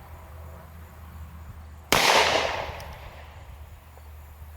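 A single pistol shot from a Bond Arms two-barrel derringer firing .45 Colt, about two seconds in: a sharp crack whose echo dies away over about a second.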